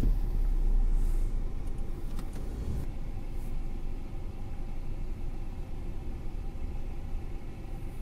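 Mercedes CLA 200's four-cylinder petrol engine idling, a low steady rumble heard from inside the cabin. The engine is misfiring, and the scan tool reports ignition coil faults.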